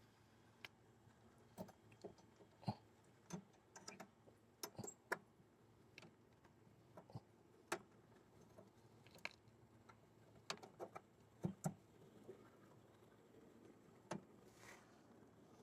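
Irregular small clicks and taps, about a dozen, as a car headlight bulb is handled and fitted into its housing.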